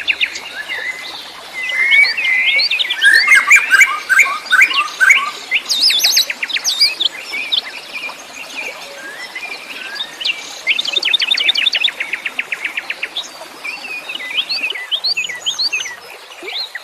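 Several wild songbirds chirping and singing over one another, with quick slurred whistles and fast trills of rapidly repeated notes, one trill near the start and another about eleven seconds in.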